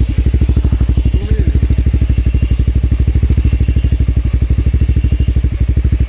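Motorcycle engine running steadily close by at low revs, its exhaust beat even and rapid with no rise or fall in pitch.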